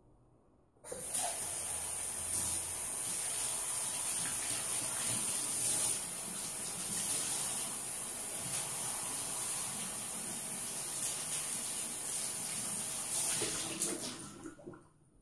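Kitchen tap running steadily, off-camera, starting about a second in and shut off near the end.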